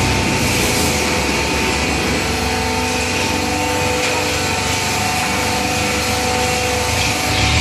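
Hydraulic baler's electric motor and oil pump running steadily, a whining hum of several steady tones over a loud hiss, the pitch stepping slightly about two seconds in.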